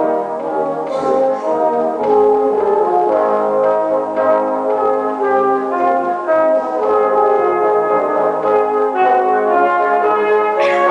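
Full brass band playing sustained, shifting chords, with trombones close and prominent. Two sharp percussion hits sound, about a second in and again near the end.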